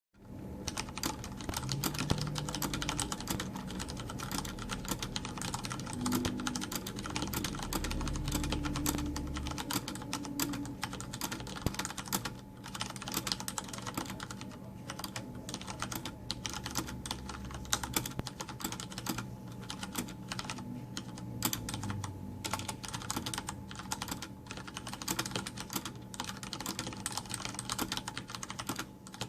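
Continuous typing on a Logitech G710+ mechanical keyboard with Cherry MX Brown switches, a dense clatter of keystrokes; with no O-rings fitted, the keycaps bottom out undamped.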